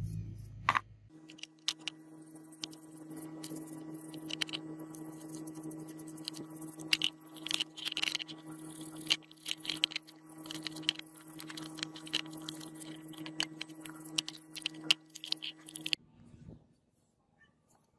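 A power tool fitted with a wire brush runs at a steady pitch while a rusty metal part is pressed against it, the bristles scratching and clicking as they scrub off rust. It starts about a second in and cuts off shortly before the end.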